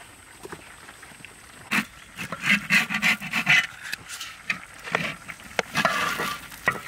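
Cooked rice spread and pressed in a hot metal pan, scraping and sizzling in irregular bursts that start sharply about two seconds in.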